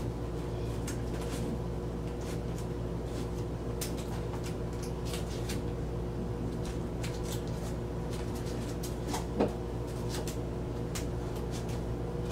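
Light clicks and crinkles of vinyl record sleeves being handled off camera, over a steady low electrical hum in the room, with one brief louder knock about nine seconds in.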